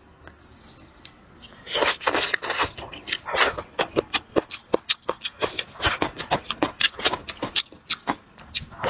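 Close-miked chewing: a person crunching and chewing a mouthful of food, a fast, uneven string of wet clicks and crunches that starts about two seconds in.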